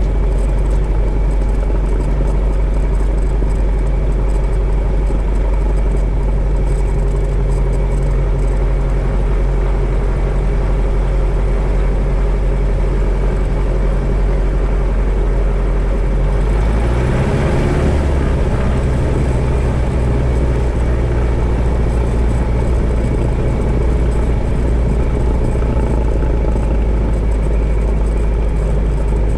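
Cessna 175's piston engine and propeller running at low taxi power, heard close up at the cowling. A little over halfway through the engine speeds up, its pitch rising, and then holds steady at the higher speed.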